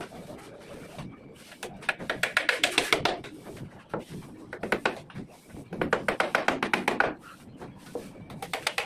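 Hammer tapping on wooden shuttering boards over a brick wall, in four quick runs of light, rapid taps with short pauses between.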